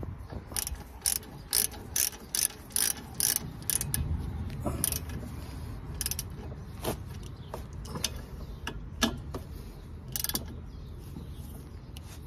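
Hand socket ratchet clicking as brake caliper bolts are tightened: a quick run of clicks, about two or three a second, for the first few seconds, then scattered single clicks.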